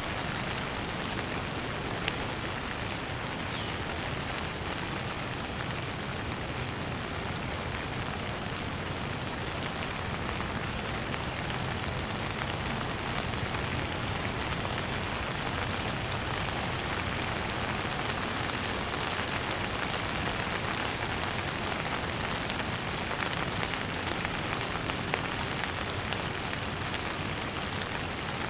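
Steady rain falling and pattering on a surface, an even hiss with occasional individual drop ticks.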